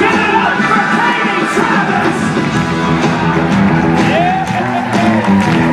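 Rock band performing, with a singer over the instruments.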